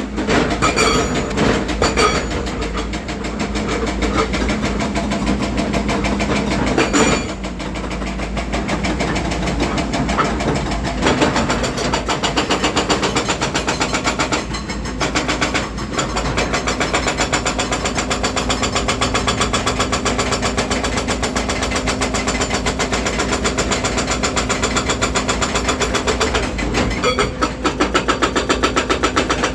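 Volvo EC210D excavator's diesel engine running while its hydraulic hammer breaker pounds in a rapid, even stream of blows, stopping briefly a few times.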